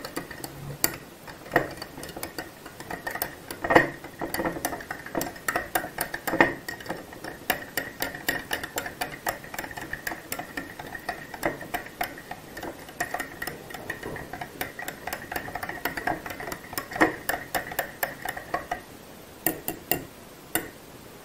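A metal teaspoon stirring salt into water in a drinking glass, clicking rapidly against the glass with a ringing tone as the salt dissolves. The stirring stops near the end, followed by a few separate clinks.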